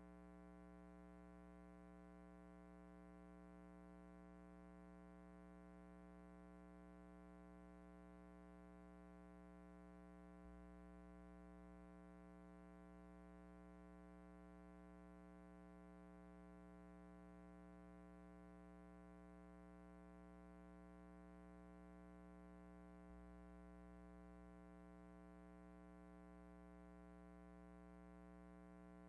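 Near silence: only a faint, steady hum made of many even tones, which does not change.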